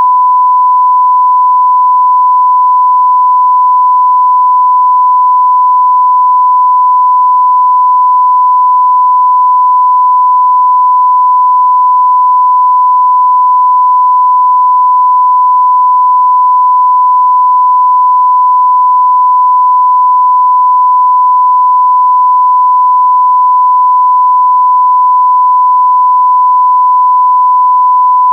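A single long electronic beep: a steady sine-wave tone held at one pitch without a break, the kind used as a censor bleep.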